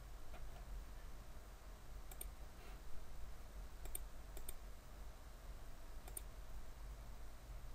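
Computer mouse clicking: scattered single clicks, some in quick pairs, over a faint low hum.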